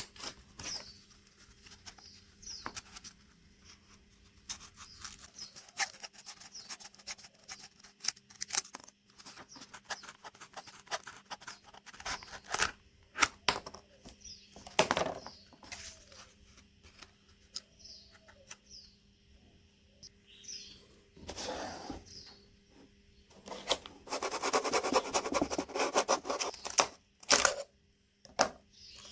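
Handwork on cardboard craft materials: scattered clicks, taps and handling noises, then a few seconds of rasping scraping near the end. Faint bird chirps and a steady low hum sit behind.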